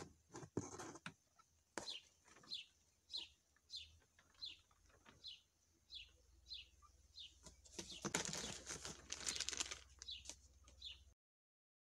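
A small bird chirps again and again, each a short falling note, about one every two-thirds of a second, over light handling knocks. About eight seconds in, a plastic bag crinkles loudly for about two seconds. The sound cuts off suddenly near the end.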